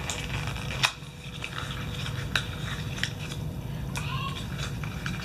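Small plastic cosmetic jars and their packaging being handled and opened: a scattering of sharp clicks, the loudest about a second in, and light crinkling, over a low steady hum.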